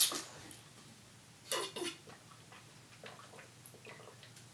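Plastic water bottle handled and drunk from: a click at the start, two short crackles about a second and a half in, then faint small ticks.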